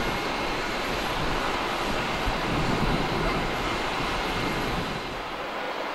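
Steady jet turbine noise with faint high whining tones, easing off slightly near the end.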